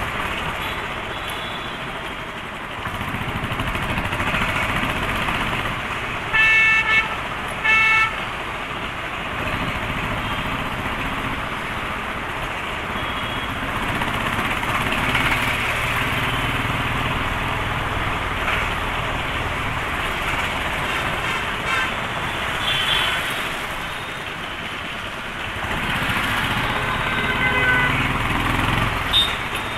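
Royal Enfield Thunderbird's single-cylinder engine running steadily under way, mixed with road and traffic noise. A vehicle horn honks twice in quick succession about six to eight seconds in, with fainter honks later.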